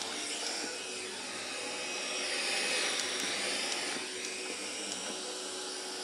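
Static hiss from the TablePro G2 Bluetooth speaker's FM radio, which is picking up no station. The hiss swells and shifts in tone as the speaker is turned about in the hand.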